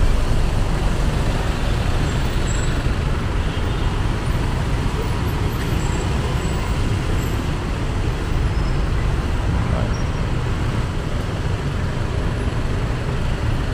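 Road traffic on a wet street, with a minibus engine running close by as it moves slowly along. Steady low rumble and tyre hiss with no sudden events.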